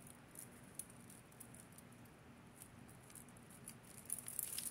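Faint, scattered clicks and light clinks of tangled jewelry chains and beads being picked apart by hand, growing busier near the end.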